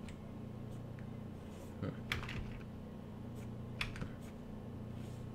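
A handful of light clicks from the drawing desk, a couple about two seconds in and another near four seconds, over a faint steady hum.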